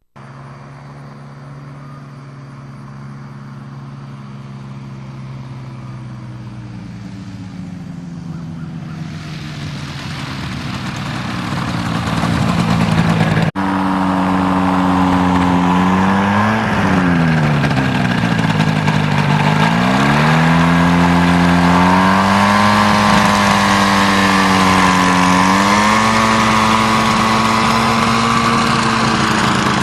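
Buccaneer XA amphibious ultralight's engine growing steadily louder as the aircraft comes closer, then running loud and close. Its pitch dips and climbs back twice.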